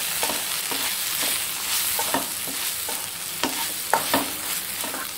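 Agathi (sesbania) greens with onion and garlic frying with a steady sizzle in a pan. A wooden spatula stirs and scrapes through them, knocking against the pan many times, most sharply a little after halfway.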